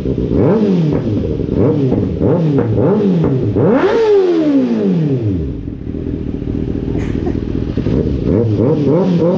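2024 Kawasaki ZX-6R's inline-four engine revved through an M4 slip-on exhaust with the baffle still in: a run of quick throttle blips, one higher rev about four seconds in that falls back to a steady idle, then more quick blips near the end.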